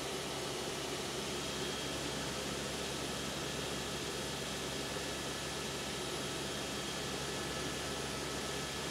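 Steady drone of engine and airflow inside the cabin of an aircraft in flight, with a few faint steady whining tones above it.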